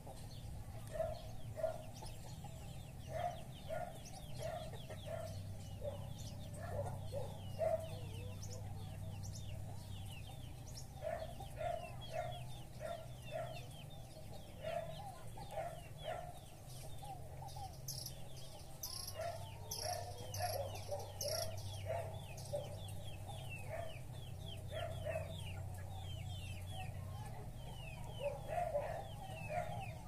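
Domestic chickens clucking repeatedly, mixed with small songbirds chirping in short falling notes, and a run of high, thin calls about two-thirds of the way through. A low steady hum runs underneath.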